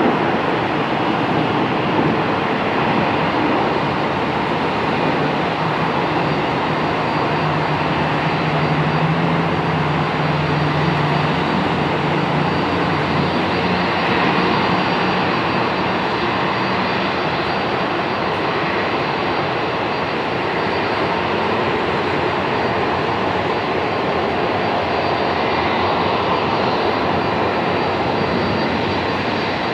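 Steady jet engine noise of a Boeing 737-800 taxiing at low power, its CFM56 turbofans heard from across the airfield. A low hum joins in for about ten seconds in the middle.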